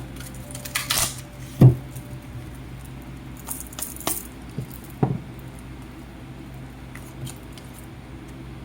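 Tarot cards and small objects being handled on a table: light rattling and clicking with a few sharp knocks in the first five seconds, over a faint steady hum.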